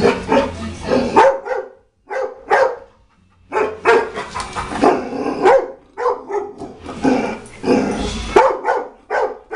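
Dog barking loudly and repeatedly, in quick runs of several barks separated by short pauses.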